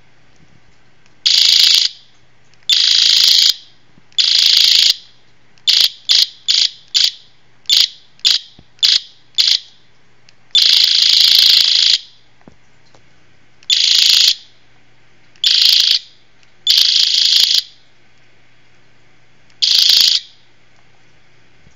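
Electronic ray-gun sound effects from a keychain-toy sound chip built into a homemade laser phaser, played through its small speaker: high, tinny zaps. Most last about a second, and in the middle comes a quick run of about ten short zaps.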